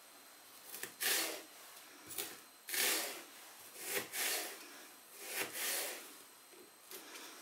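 Large kitchen knife slicing crosswise through an onion half on a cutting board to dice it: about five separate crunching cuts, roughly one a second.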